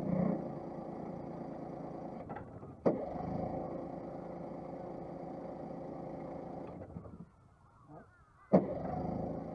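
An engine running steadily. It drops out briefly about seven seconds in and returns with a sharp click, with another sharp click about three seconds in.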